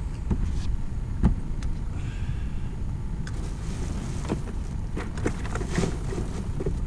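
A plastic bag rustling inside a plastic cooler, with a series of sharp knocks against the cooler, the loudest about a second in. All of it sits over a steady low rumble.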